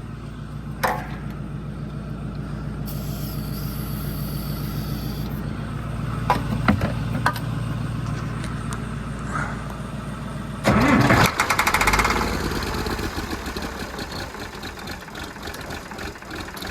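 Old engine cranking on its starter with ether sprayed in, a steady pulsing churn for about ten seconds. It then catches with a sudden loud burst of firing and runs unevenly, easing off toward the end.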